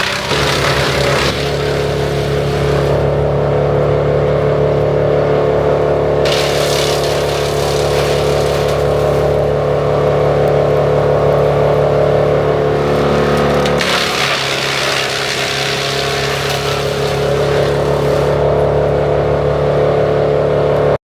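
Vermeer BC1000XL wood chipper running, a steady engine drone with stretches of harsh, noisy grinding laid over it that come and go: at the start, again from about six seconds in, and from about fourteen seconds on, where the engine note also changes.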